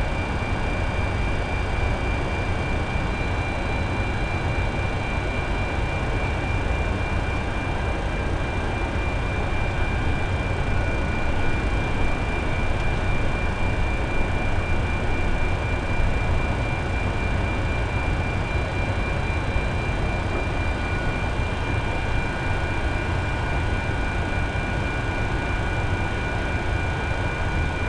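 Steady drone of running equipment and airflow inside the flight deck of a parked Boeing 747, with a thin, steady high whine throughout and a second, lower whine that comes in partway through.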